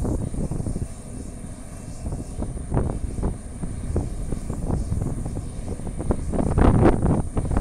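Embraer KC-390 twin-turbofan jet engines running, a steady low rumble with irregular rough surges that grow louder near the end.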